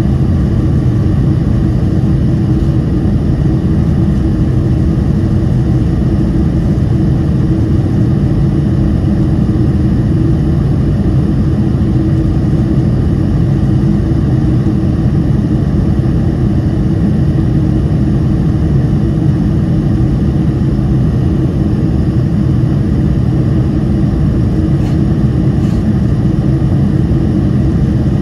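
Steady cabin roar inside a Boeing 747-400 in flight: the jet engines and rushing airflow heard through the fuselage, a dense low rumble with a steady hum.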